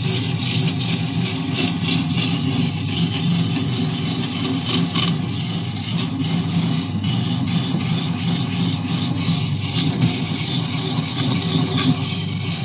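Electric coconut grater running steadily with a constant motor hum, its spinning serrated head rasping the white flesh out of a half coconut pressed against it.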